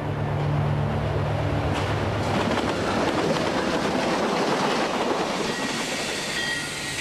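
Passenger train running along the line, a steady noise of the train on the rails that builds over the first two seconds and holds, easing slightly near the end.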